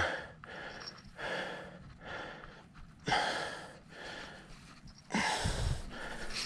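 A man breathing hard, about one heavy breath a second, while straining against a big catfish on the rod. About five seconds in comes a louder, longer rush of noise with a low rumble.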